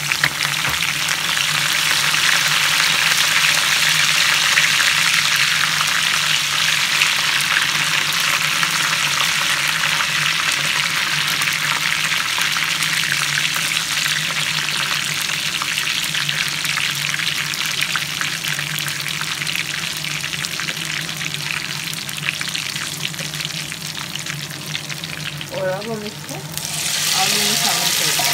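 Curry leaves, dried Kashmiri red chillies and mustard seeds sizzling and crackling in hot oil for a tadka, with a spatula stirring now and then. The sizzle drops briefly near the end, then comes back loud.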